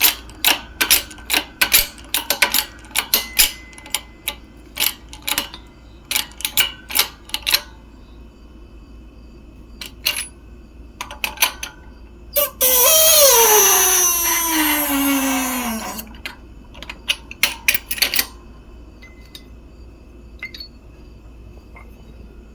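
Shop press being worked to push a bearing out of an aluminium motor end cover: rapid metallic clicking for several seconds. About twelve seconds in comes a loud screech whose pitch falls steadily over about three and a half seconds, followed by a few more clicks.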